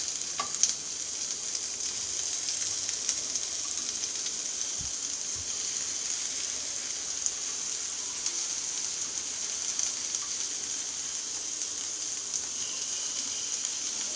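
Chopped onion sizzling in hot coconut oil in a kadai: a steady frying hiss, with a few light clicks about half a second in.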